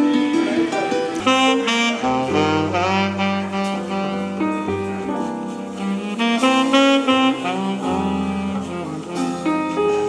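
Jazz music playing: a melody with sliding, bending notes over chords and a moving bass line.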